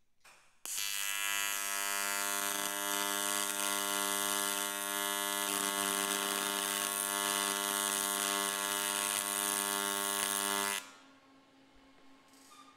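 AC TIG welding arc on aluminum: a steady buzz made of many evenly spaced tones, striking under a second in and cutting off suddenly about ten seconds later, after which a faint steady hum remains.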